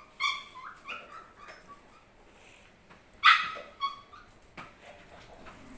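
Short, high-pitched whimpering cries of a small pet animal: several in quick succession near the start, the loudest about three seconds in, and another just after it.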